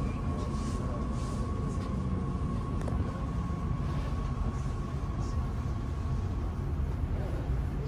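Cabin noise of an electric Transilien Line L commuter train running: a steady low rumble with a thin steady whine that fades away about six seconds in as the train comes into a station.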